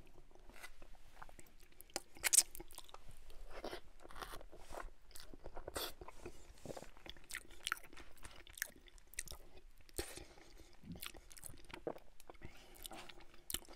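Close-miked chewing of a mouthful of poutine: fries, cheese curds and gravy with ketchup. Wet mouth smacks and clicks come at irregular moments, the sharpest about two seconds in.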